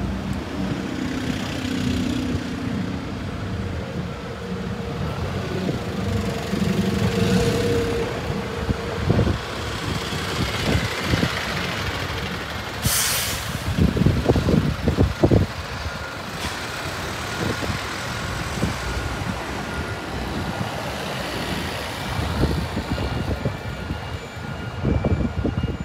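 City buses running in street traffic, engines pulling past, with a short sharp air-brake hiss about halfway through and a steady high-pitched whine in the last third.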